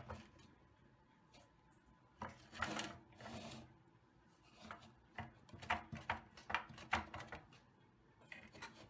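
Rusty toy forklift handled by hand: a scraping rub of rusted metal and rubber tyre about two seconds in, then a quick run of small clicks and rattles as the wheel and loose parts are moved.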